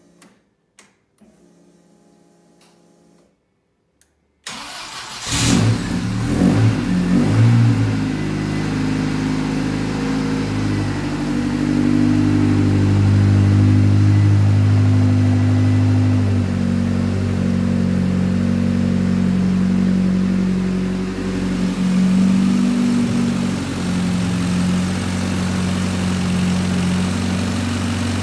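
Ford Escort RS Cosworth's turbocharged 2.0-litre four-cylinder engine, freshly rebuilt after a total overhaul. After a few seconds of quiet it fires up about four and a half seconds in, its revs rising and falling unevenly for a few seconds, then settles into steady running.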